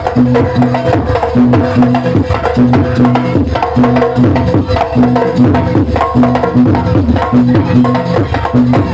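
Jaranan accompaniment music: an ensemble of drums and tuned gongs playing a fast, loud, repeating pattern.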